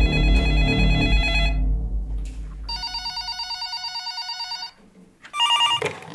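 Electronic desk telephones ringing in turn, three rings with different tones: one for about a second and a half, a warbling one for about two seconds, then a short one near the end.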